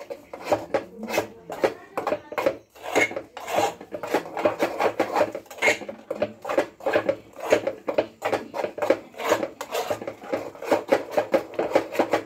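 Metal spoon scraping and stirring against the inside of a steel pot, a rhythmic rasp of about two to three strokes a second.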